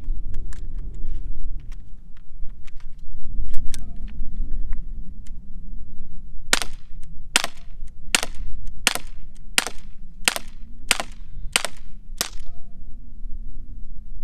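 CO2 air pistol firing a quick string of nine sharp pops, about one every two-thirds of a second, starting about halfway through. Fainter clicks come in the seconds before the string.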